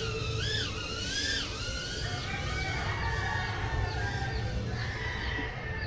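Small cinewhoop drone's motors and propellers whining, the pitch swooping up and down with throttle for the first two seconds, then holding steadier.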